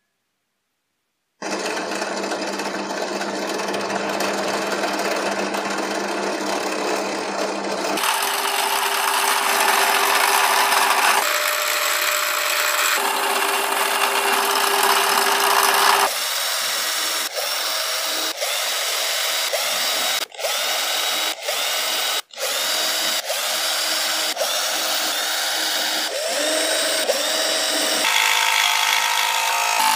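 Bench drill press running as it bores small holes through a paper pattern into a thin wooden board, starting about a second and a half in and heard across several short clips. Near the end a scroll saw runs, cutting the board.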